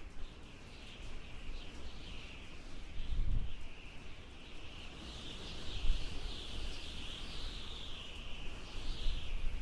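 A chorus of birds chirping and twittering without a break, over a low rumble that swells twice, about three seconds in and again near six seconds.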